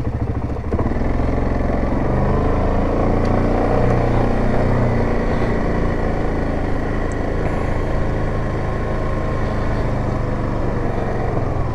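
Single-cylinder engine of a 2017 Yamaha Grizzly 700 ATV running steadily while riding, its pitch rising and falling slightly with the throttle.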